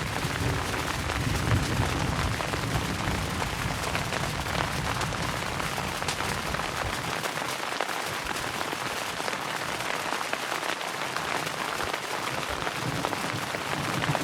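Steady rain falling, a dense hiss of drops, with a low rumble under it that fades out about halfway through.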